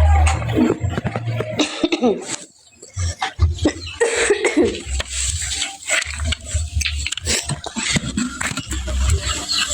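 A woman coughing several times, with a low rumble underneath at times.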